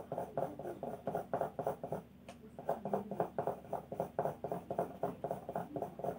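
Soft graphite pencil shading on drawing paper: quick back-and-forth scratchy strokes, about five a second, with a short break about two seconds in.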